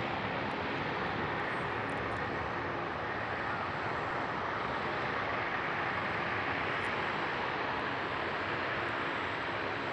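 Boeing 757-200's twin turbofan engines at takeoff thrust, a steady jet roar as the airliner starts its takeoff roll.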